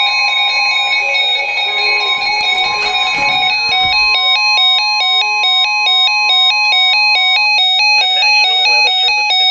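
Emergency Alert System alert tones over broadcast radio: several steady electronic tones, joined about four seconds in by a rapid high-low alternating warble, all cutting off abruptly at the end.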